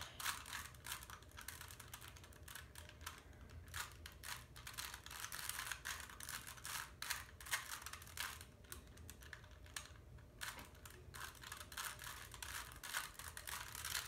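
A plastic Rubik's Cube being twisted quickly by hand: a fast, irregular clatter of small clicks as the layers turn, while the same move sequence is repeated to finish the first two layers.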